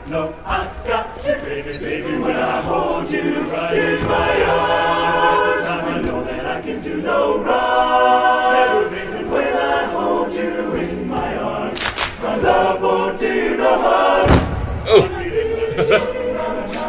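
Large barbershop chorus singing a funk medley a cappella, many voices in close harmony. Two sharp percussive hits land late on, the second with a deep thud.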